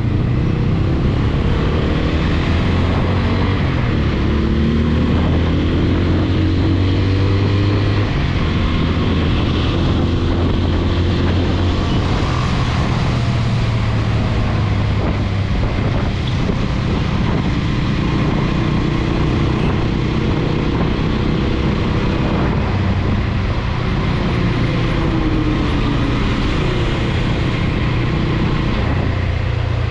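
TVS Apache RTR 200 4V's single-cylinder engine running on the move, its pitch climbing and dropping back several times with throttle and gear changes, over steady wind noise on the microphone.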